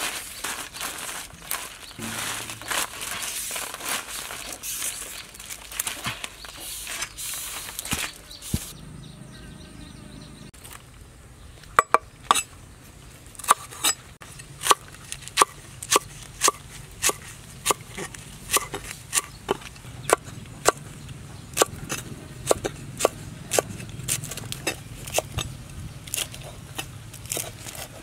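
For the first eight or so seconds, a dense buzzing and scratching of live horned beetles in a woven basket. After that comes a cleaver chopping lemongrass on a wooden board, steady sharp strokes about one and a half a second from about twelve seconds in.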